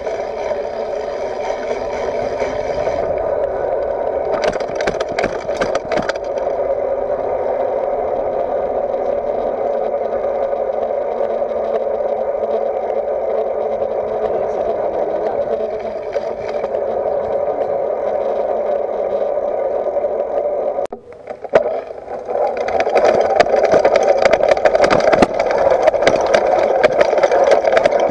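Mountain bike riding along, heard through a microphone mounted low at the front: a steady rushing hum of tyres and wind. Near the end it breaks off briefly, then turns louder and rattly, with many quick ticks and knocks as the bike rolls over gravel.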